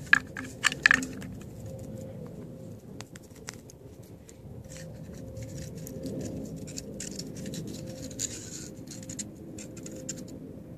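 A few sharp clicks and knocks in the first second as a firework launch tube is handled, then light scratching and ticking as the sticks of two bottle rockets are slid into the tube.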